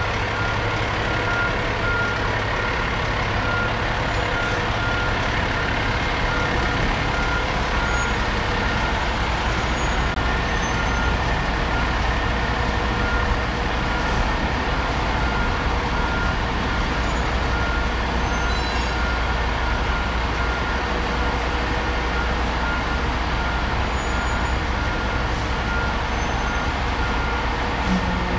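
A squirt fire engine backing up, its engine running steadily and its reversing alarm beeping over and over at an even pace.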